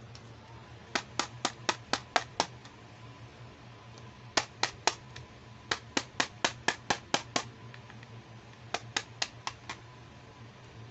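Fingers tapping on a hard plastic makeup palette case: quick, sharp taps about four a second, in four short runs with pauses between.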